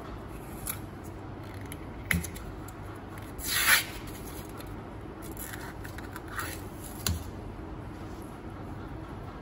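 A plastic peanut butter jar is opened: a few clicks and scrapes as the screw lid is twisted off, then the inner seal is peeled away from the rim with a short, loud ripping tear about three and a half seconds in, followed by softer rasps and a click.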